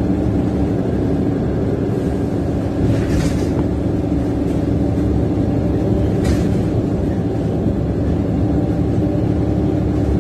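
VDL DB300 double-decker bus's diesel engine running steadily, a low drone heard from the upper deck. Two short hisses come about three and six seconds in.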